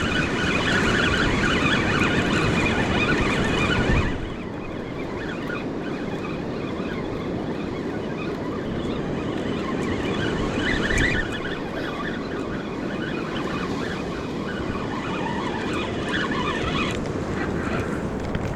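Ocean surf washing with wind buffeting the microphone, as a steady rushing noise that drops noticeably in level about four seconds in.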